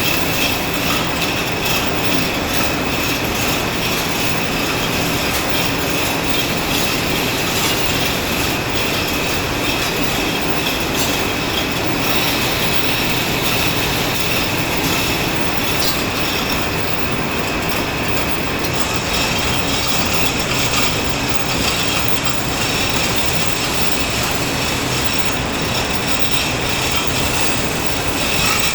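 Steady, loud din of textile-mill machinery (the carding and spinning machines of the mill) running without a break, with a thin steady high whine over it.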